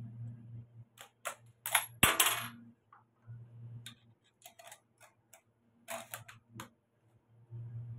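Metallic clicks and clacks from a scoped Lee-Enfield bolt-action rifle being handled just after a shot, several close together with a short ringing clink about two seconds in, then more scattered small clicks later on.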